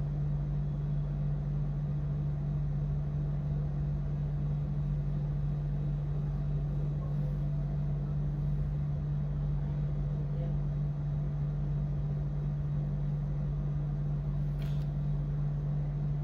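Steady low hum at a constant pitch, with one faint click about fifteen seconds in.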